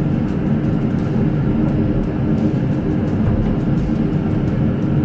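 Diesel engine of a large tracked excavator running steadily, a constant drone with no change in pitch.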